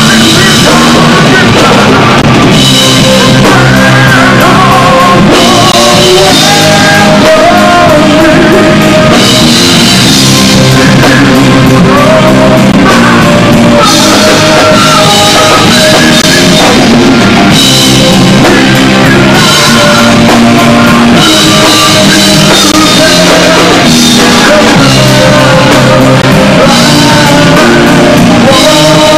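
Rock band playing live: a singer over electric guitar and a drum kit, loud throughout.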